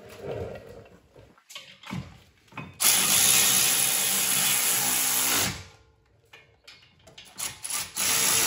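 Cordless electric ratchet driving a brake caliper bracket bolt: a few short clicks, then two steady runs of the motor, about two and a half seconds and two seconds long, the first winding down as it stops.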